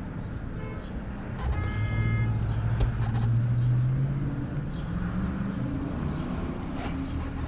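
A motor vehicle's engine running, its low drone rising slowly in pitch for a couple of seconds and rising again later. A short high tone sounds about two seconds in.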